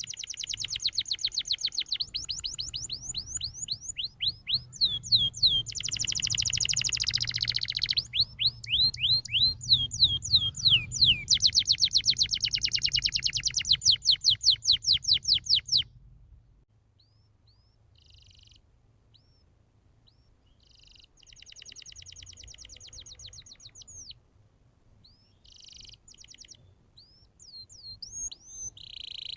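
Domestic canary singing: fast trills and rolls of rapidly repeated rising notes, loud and continuous over a low hum for about the first half, then dropping to quieter, scattered short phrases with one more trill.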